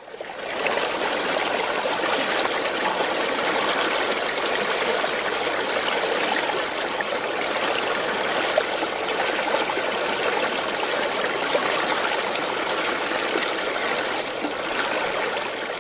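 Steady rush of flowing water, fading in at the start.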